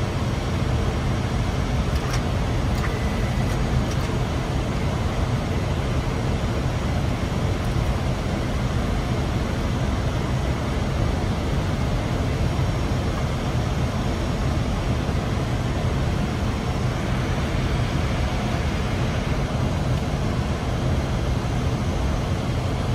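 Steady flight-deck noise of an Airbus A320 in flight on approach to landing: a constant low rumble with hiss over it.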